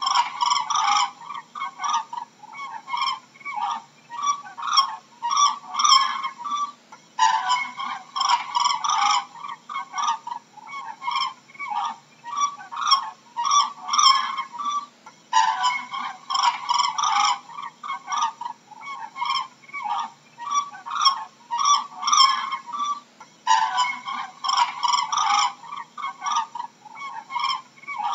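Cranes calling: many short, loud, overlapping calls, with a denser burst of calling that comes back about every eight seconds.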